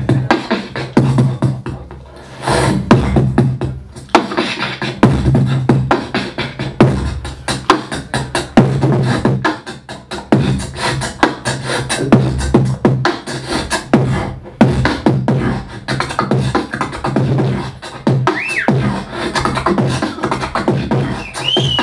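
Solo human beatboxing: fast, rhythmic vocal kick, snare and hi-hat sounds with a low hum under the beat, and a few short whistle-like pitch glides near the end.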